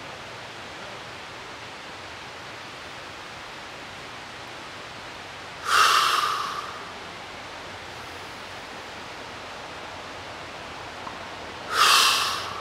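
A man's long, breathy, whispered exhalations, the sounds of a 'healing sounds' breathing exercise: one about six seconds in and another near the end, each starting strongly and fading out over about a second. A steady hiss lies under them throughout.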